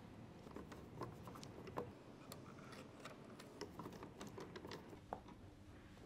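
Faint, irregular small clicks and ticks of wires being pushed into a transfer switch's terminal block, fingers pressing on the terminals.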